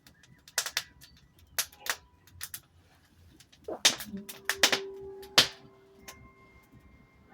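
Wood fire in a washing-machine-drum fire pit crackling, with about a dozen sharp, irregular pops, some in quick pairs and the loudest a little past the middle.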